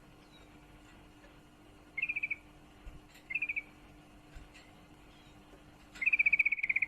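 Female yellow-vented bulbul giving rapid chattering trills of quick repeated notes: two short trills, then a longer one near the end. This ngriwik chatter is the call of a female in breeding condition calling a male.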